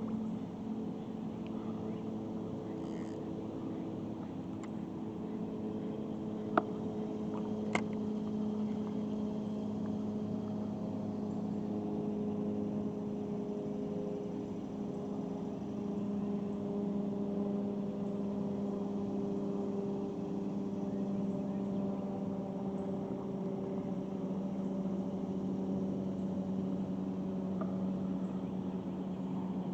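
A steady low motor hum made of several held tones, with two short sharp clicks about six and a half and eight seconds in.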